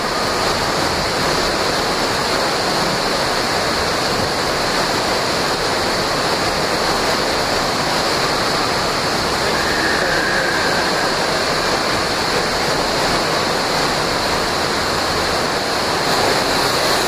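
Water slide runout water pouring steadily out of two tube-slide exits into a splash pool: an even, unbroken rushing of falling water.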